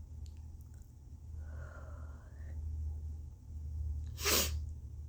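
A woman's sharp, unvoiced sneeze about four seconds in, one of a series provoked by turmeric snuffed up the nose. It comes after a faint rising breathy sound, over a steady low hum.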